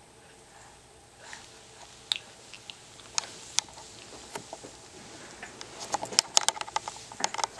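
Small sharp clicks and scratchy rustles from a baby moving on a bed sheet as she rolls over onto her tummy, scattered at first and coming thick and fast near the end.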